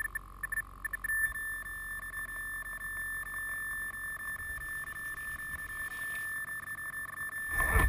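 Steady high-pitched electronic whine from an electric RC crawler's motor and speed controller. It pulses briefly at first and then holds one tone. A louder rumble and rustle comes in near the end as another RC truck drives through the grass close by.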